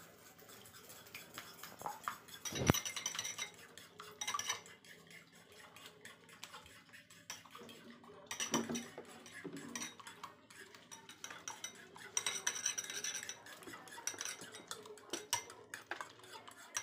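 Eggs being beaten with a metal utensil in a ceramic bowl: quick, irregular clinking and scraping of metal against the bowl, with one loud knock about two and a half seconds in.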